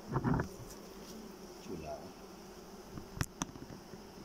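Honeybee colony buzzing steadily from an open, crowded hive. Knocks in the first half second and two sharp clicks a little past three seconds as a wooden frame is worked loose and lifted out.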